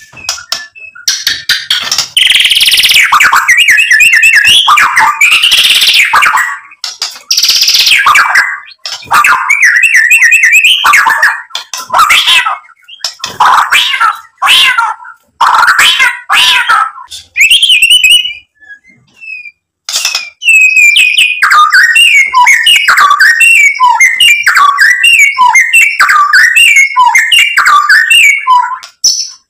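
White-rumped shama singing vigorously: loud, varied whistled phrases mixed with harsh rasping notes, a short pause a little past halfway, then a long run of quick repeated whistled notes.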